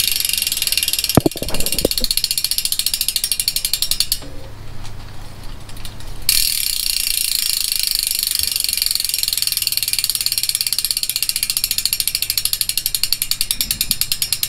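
DT Swiss 370 rear hub's 3-pawl freehub clicking as the wheel freewheels: a fast, even buzz of ticks. It stops about four seconds in and starts again about two seconds later. A brief low thud comes about a second in.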